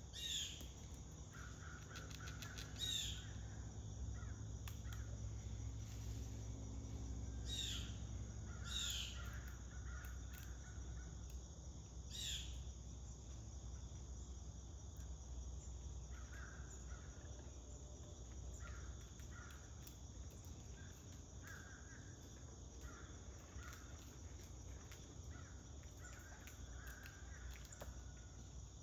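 Blue jay squawking: about five harsh, down-slurred calls in the first dozen seconds, over a steady high insect trill and faint chirps of smaller birds.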